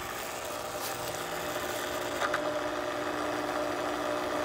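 Intex 635T cartridge filter pump running steadily, pumping water through its hoses: an even motor hum of several fixed tones over a constant hiss.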